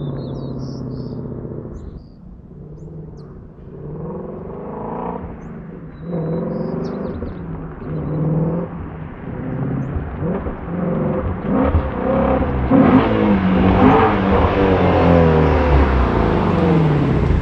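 Shelby GT350's 5.2-litre flat-plane-crank V8 exhaust, the car accelerating hard as it approaches. The pitch climbs and drops back again and again as it shifts through the gears. It grows louder toward the end.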